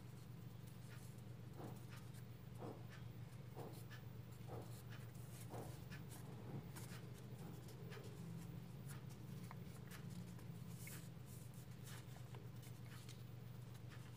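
Faint rustling and crinkling of origami paper being folded and creased by hand: scattered small crackles and ticks over a steady low hum.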